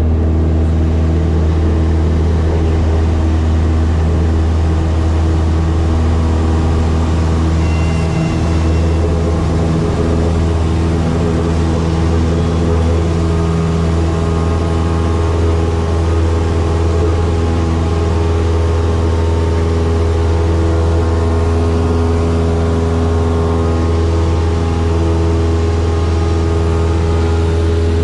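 Cessna 172's piston engine and propeller at full throttle for takeoff and climb, heard inside the cabin as a loud, steady drone with a strong low hum.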